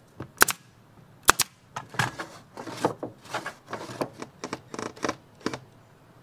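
Wooden panels being fitted by hand into a camper's hatch opening: two sharp snaps in the first second and a half, then a run of lighter, irregular knocks and scrapes as the boards are pushed and shifted into place.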